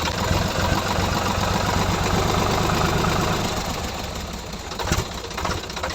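Small motor of a DIY miniature tractor running steadily with a fast, even pulse, a little quieter in the second half, and a sharp click about five seconds in.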